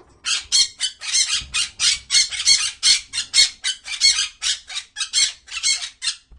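Pig squealing over and over, about three short high-pitched squeals a second.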